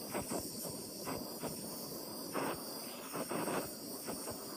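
Small handheld gas torch flame hissing steadily as it heats a copper disc to anneal it, with irregular short crackles; the torch's fuel is running low.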